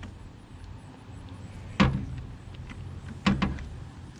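Two sharp clunks of hand tools being handled on the engine, about two seconds in and again a second and a half later.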